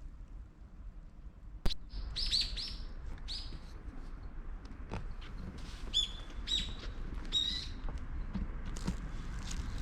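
Birds chirping in short clusters of quick, falling high calls, twice, over a steady low outdoor rumble. A single sharp click sounds about a second and a half in.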